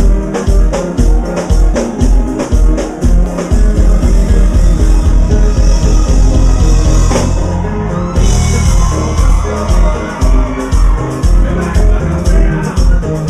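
Live kompa band playing loudly, with singing over a steady pounding bass drum beat of about two strokes a second and cymbals.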